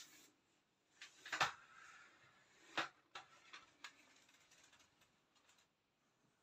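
Handling noise: a few light clicks and knocks, the loudest about a second and a half in and another near three seconds, with a soft rustle and smaller ticks between.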